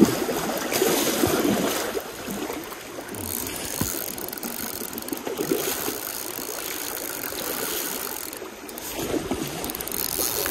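Fast stream water rushing steadily over shallow riffles, with a few brief knocks.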